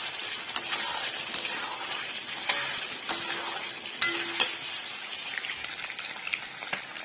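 Food sizzling in hot oil in a kadai while a spatula stirs a curry, with the spatula scraping and knocking against the pan every second or so. Near the end, fish frying in oil.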